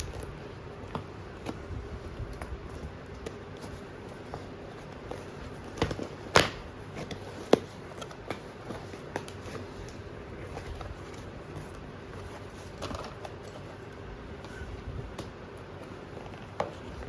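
A package being unboxed by hand: scattered clicks, taps and crackles of packaging and padding being handled, with a few sharper knocks about six to seven and a half seconds in, over a steady low hum.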